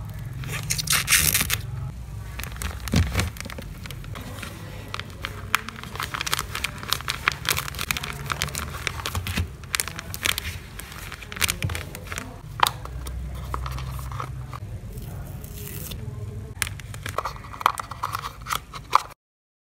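Clear plastic sleeve filled with soft stuffing crinkling and crackling as hands press, rub and smooth it over a spiral notebook, with many sharp crackles and scrapes. The sound cuts off abruptly near the end.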